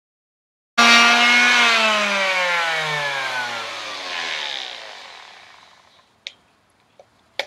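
Electric palm sander's motor running, then switched off about a second and a half in, its pitch falling steadily as it winds down over several seconds. Two small clicks come near the end.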